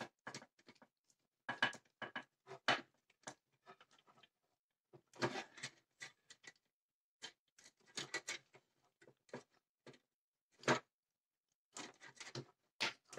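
Small screwdriver clicking and scraping as it tightens the screw of a wire terminal connector inside an opened plastic power strip, with light knocks of the housing. Irregular light clicks and taps.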